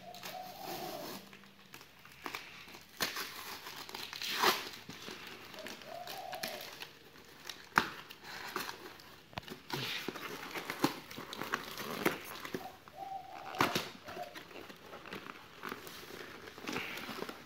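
Cardboard shipping box being torn open by hand: packing tape and cardboard flaps ripping and crinkling in irregular rasps and crackles. There are a few sharper, louder rips.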